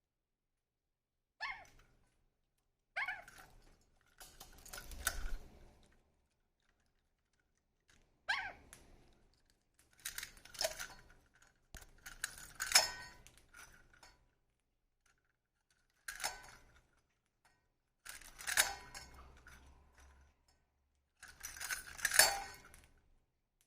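Small hard objects clinking and rattling in about nine short bursts with quiet gaps between, as a pet bird plays with a toy.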